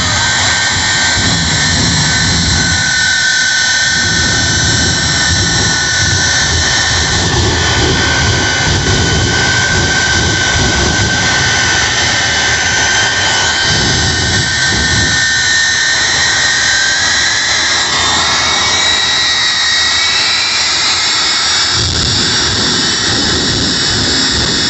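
Jet engines of a jet-powered semi truck running hard: a loud, continuous rushing roar with steady high-pitched whines. About sixteen seconds in, a second whine climbs in pitch over a few seconds.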